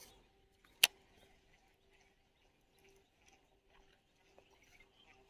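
Mostly quiet, with one sharp click a little under a second in.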